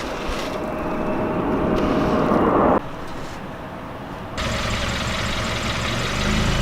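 A car rolling slowly, its tyre and engine noise building until it cuts off abruptly about three seconds in. A quieter stretch follows, then another sudden change to a steady low rumble, like a jump between separately recorded clips.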